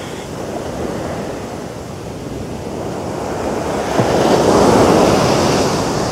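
Ocean surf on a sandy beach: a steady wash of breaking waves, with one wave surging up louder about four seconds in before easing off.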